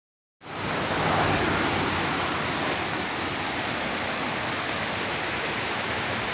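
Steady rushing noise of running water, even and unbroken, starting abruptly about half a second in.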